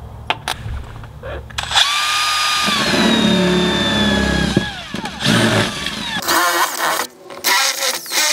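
Makita cordless drill boring 7.2 mm holes through the tent's metal floor: a few clicks, then the motor runs for about three seconds with a whine that drops in pitch near the end, followed by two shorter runs.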